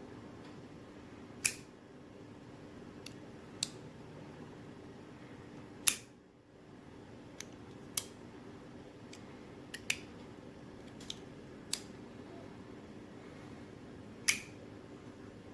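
CJRB Maileah folding knife with a compression lock, its blade repeatedly flicked open and closed, giving about seven sharp clicks roughly two seconds apart. A steady low hum runs underneath.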